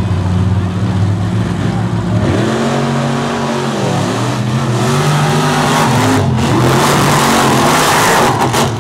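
Two monster trucks' supercharged V8 engines idle steadily at the start line, then rev hard as the trucks launch, the pitch sweeping up and down. The engine noise builds to its loudest as the trucks race past close by, then falls away suddenly near the end.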